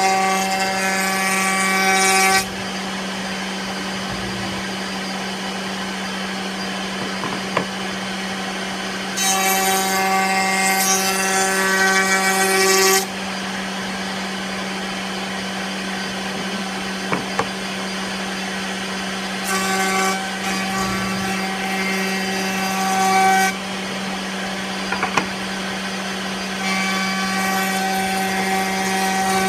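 A router table running steadily, with four louder spells of cutting, each a few seconds long, as a wooden board is hand-fed past the bit to round over its four edges. Small knocks come between the cuts as the board is turned.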